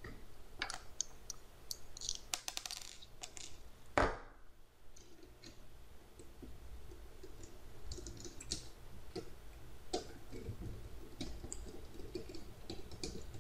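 Scattered plastic clicks and rattles from a Dell Latitude D630 laptop's casing being handled and pried apart by hand, with one sharp, louder click about four seconds in.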